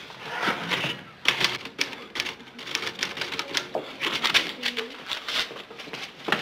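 Manual office typewriter typed in quick, irregular runs of keystroke clicks.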